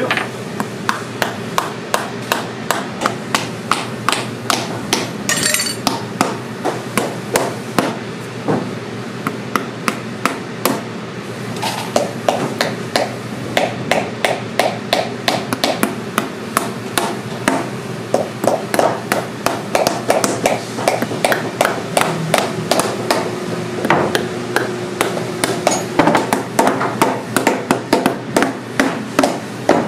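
Cobbler's hammer driving small nails into a new heel lift on a boot being resoled: a steady run of light, sharp strikes, about three a second.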